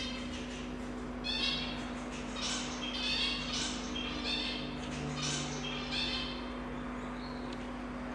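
A run of short, high-pitched animal calls, about eight in five seconds starting about a second in, over a steady low hum.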